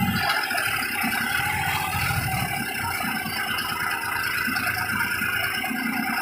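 New Holland 5620 tractor's 65 HP common-rail diesel engine running steadily as the tractor drives along, with a dense, rapid pulsing and a mechanical rattle.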